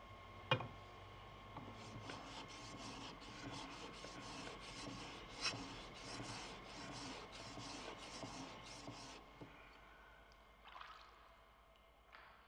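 Japanese sword blade rubbed back and forth on a wet whetstone during polishing: a regular run of scraping strokes at roughly three a second, with a sharp tap about half a second in and another about halfway. The strokes stop shortly before the end, and two brief scrapes follow.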